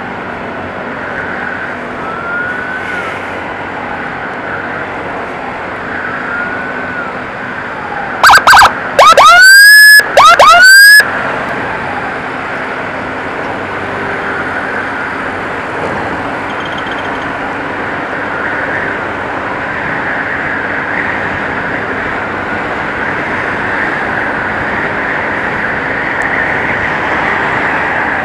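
Emergency siren in traffic: a faint wail repeating about every second or two, then a few very loud, close siren blasts about eight to eleven seconds in, each sweeping up in pitch. Steady road and wind noise from the moving vehicle runs underneath.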